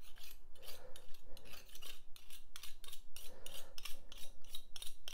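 Quick, uneven rubbing and scraping strokes: a thin metal blade being wiped and scraped clean by hand with a scrap of paper or tissue.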